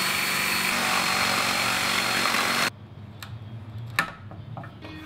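A power tool running steadily on wood, with a faint high whine over a hiss, then stopping abruptly a little under three seconds in. After it come a few light knocks and one sharp click about a second before the end.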